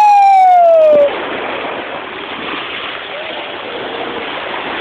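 Shallow beach surf washing in over the sand, a steady hiss of breaking water, opening with a long high-pitched 'wheee' that falls slowly in pitch over about a second and a half.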